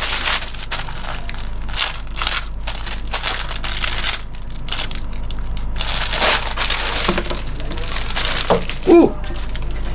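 Clear plastic garment bag crinkling and rustling as hands handle and open it around a folded t-shirt. There is a brief pitched sound near the end, the loudest moment.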